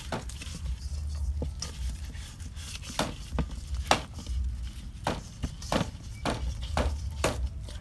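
Two whole scad being turned and rubbed with salt by a gloved hand in a stainless steel bowl: irregular clicks and knocks of fish and hand against the metal bowl, over a low rumble.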